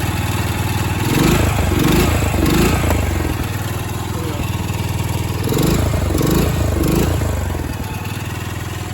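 Small engine of an old farm carrier running steadily after its carburetor has been disassembled and cleaned, revved up briefly about three times in quick succession, twice over.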